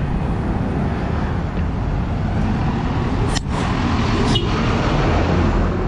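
Street traffic: a steady engine rumble and road noise from motorcycles and cars, with a car driving past. Two short, sharp sounds come about three and a half and four and a half seconds in.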